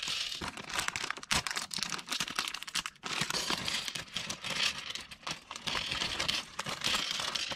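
Thin clear plastic parts bag crinkling as hands open and shake it, with small plastic building bricks clicking as they tip out onto a table.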